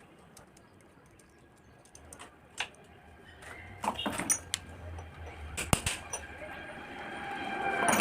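Scattered metallic clicks and knocks of hand tools and engine parts being handled while a motorcycle engine's covers are taken off, with a faint low hum underneath. The loudest knocks come as a sharp pair a little over halfway through.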